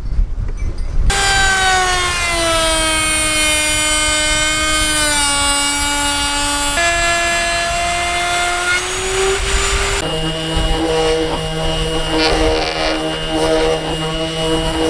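Electric router starts about a second in and runs under load trimming a plywood edge, its high whine sagging and shifting in pitch as the bit cuts. At about ten seconds it gives way to the lower, steadier hum of a cordless random-orbit sander.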